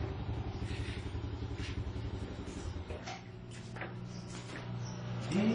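Small Alkom stationary engine running with an even, rapid firing pulse. It gets quieter and lower from about three seconds in, with a few light clicks.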